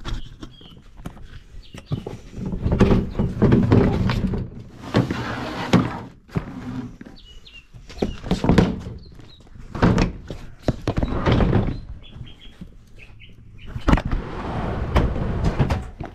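Irregular knocks and thuds with stretches of rustling, and a few short high chirps in between.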